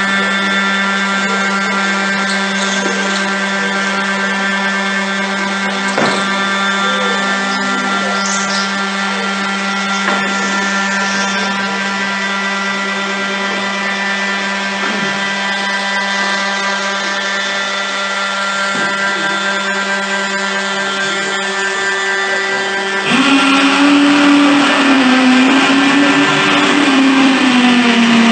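A steady drone: a low hum with many held tones stacked above it, with a few faint clicks. About 23 s in it turns louder and harsher, with a hissing rush and a wavering lower tone.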